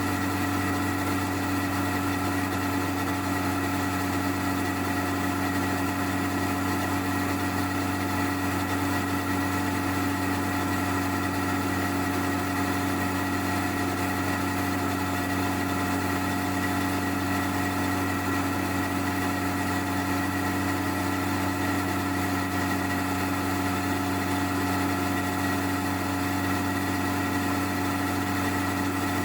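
Honda CBR1100XX Blackbird's stock-exhaust inline-four engine idling at a steady, unchanging pitch, heard from under the rear seat.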